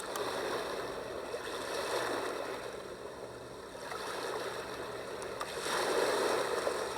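Recorded ocean-surf sound from a Big Red Rooster 8-sound white noise machine (model BRRC122), played through its small speaker: a rushing wash of waves that swells and ebbs slowly, peaking twice.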